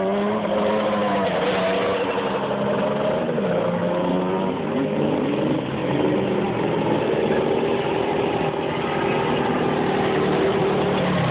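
Several quad ATV engines running at once, their pitch rising and falling as the riders rev and ride.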